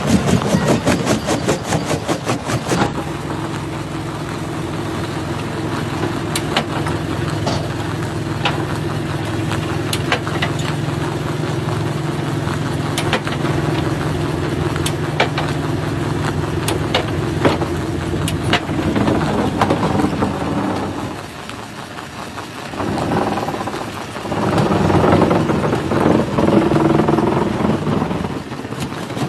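Stone jaw crusher running with a steady low motor hum while rocks crack sharply between its jaws. A fast rattle fills the first few seconds, and the sound dips briefly before a louder, rougher stretch of crushing near the end.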